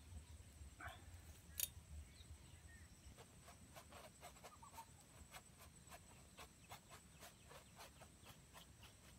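Faint quick taps and flicks of a paintbrush on a stretched canvas while painting grass, several irregular ticks a second, with a single sharper click near the start. A short faint bird call is heard about a second in.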